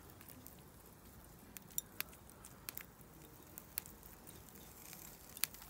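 Faint crackling from a charcoal barbecue grill: scattered sharp pops over a low hiss while a steak sits on the grate.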